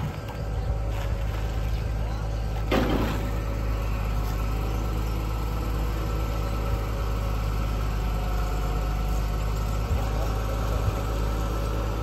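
Steady hum of a construction machine's engine running at a constant idle-like pace, with a brief rushing scrape about three seconds in.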